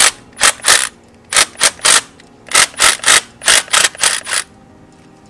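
Impact gun run in about a dozen short bursts, stopping about four seconds in.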